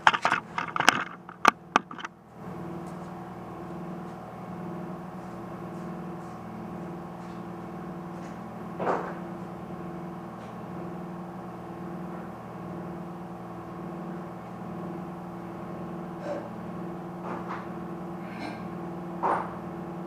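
Handling knocks and clicks for about the first two seconds as the camera is moved, then a steady machine hum with a few faint ticks.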